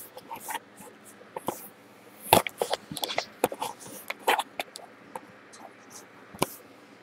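Irregular clicks, knocks and light rustles from handling wires and parts on a workbench, with a louder knock about two and a half seconds in.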